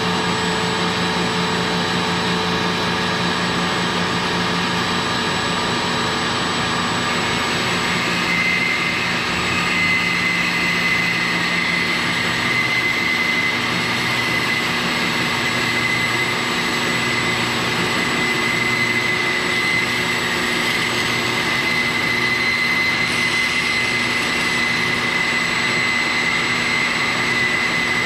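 Shop vacuum running steadily as dust collection on a Grizzly 17-inch band saw, with the saw running too. A steady high whine joins about nine seconds in.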